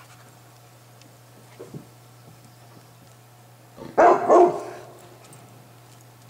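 A Bernese Mountain Dog barking once, a short double bark about four seconds in.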